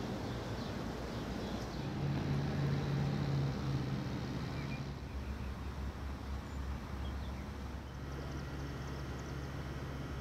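Outdoor street ambience: a steady low hum of road traffic and idling engines, changing character a couple of times as the shots change.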